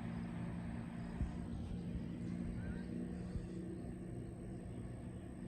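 Outboard motor of a pontoon boat out on the lake, a steady low drone that fades slightly toward the end.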